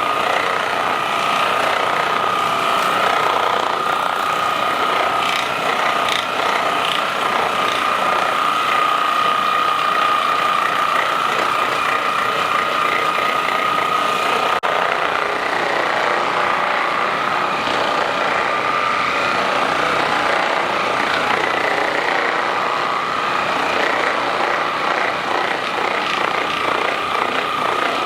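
Handheld percussive massage gun running steadily on the muscles, a constant high motor whine over a fast rattle, used to loosen the muscles before a chiropractic adjustment.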